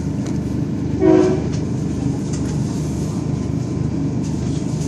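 Passenger train running along the tracks, its steady low rumble heard from inside the carriage. About a second in, a short horn blast sounds briefly above it.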